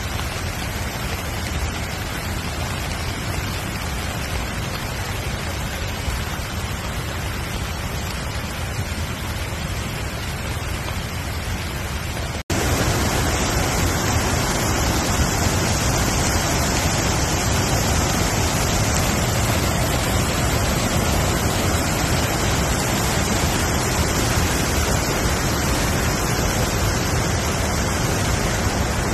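Steady rushing sound of water, with no rhythm or tone. About twelve seconds in it cuts abruptly to a louder, brighter stretch of the same rushing.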